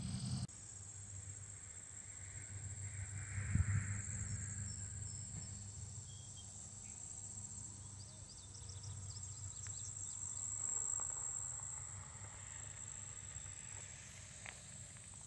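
Steady high-pitched chorus of insects in a summer meadow, with a low rumble underneath. A quick run of faint chirps comes near the middle.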